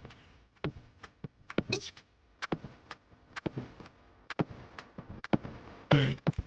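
Close-miked mouth sounds of eating: scattered wet clicks and smacks of lips and tongue while chewing, with a short hum about two seconds in and again near the end.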